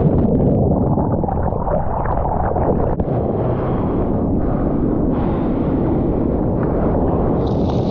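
Loud, steady, rumbling noise buffeting the microphone, with a brighter hiss joining near the end.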